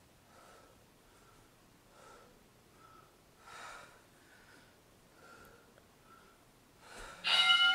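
A woman's faint, short exertion breaths, about one a second, as she lifts dumbbells. Near the end an electronic interval timer sounds a loud, steady beep, marking the end of a 50-second work interval.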